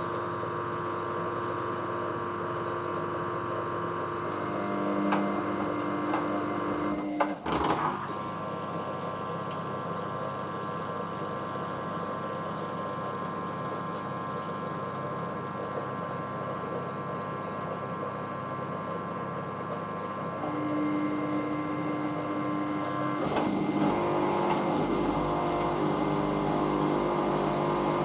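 Hoover washing machine running its drain pump and drum motor as it goes into the second intermediate spin, a steady mechanical whine with a brief clunk about seven seconds in. Near the end a low rumble comes in as the drum picks up speed.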